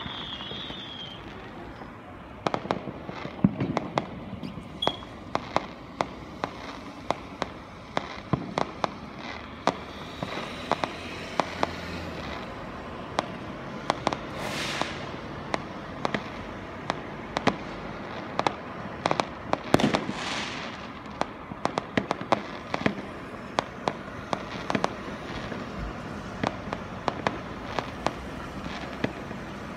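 Fireworks going off: many sharp bangs and pops at irregular intervals, with a couple of brief hissing bursts in the middle.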